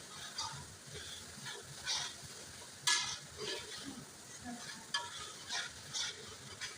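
A spoon stirring and scraping a pot of frying stew, with the stew sizzling underneath. Short scrapes and knocks come every half second to a second, the sharpest about three seconds in.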